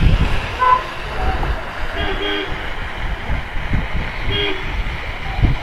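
Two short vehicle horn toots about two seconds apart, over wind buffeting the microphone.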